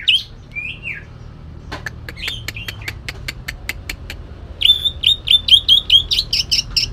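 Greater green leafbird (cucak ijo, Kalimantan form) singing a harsh, burst-filled song. A couple of slurred whistles give way to a rapid run of sharp ticks. After a short lull, a fast string of repeated notes starts about two-thirds in, several per second.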